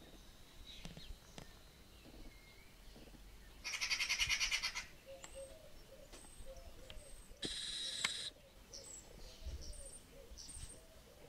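Eurasian magpie chattering: two harsh, rapid rattling calls about a second long each, the first about 4 s in and the second about 7.5 s in. Between and after them, small birds chirp faintly and a low call repeats in the background.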